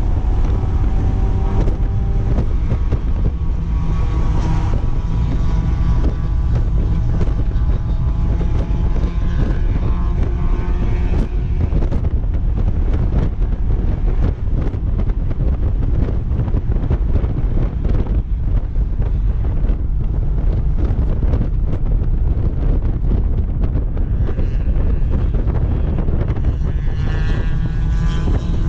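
Mazda MX-5 Miata's four-cylinder engine running hard at track speed, heard from the open-top cockpit with wind buffeting on the microphone. The engine note climbs under acceleration near the end.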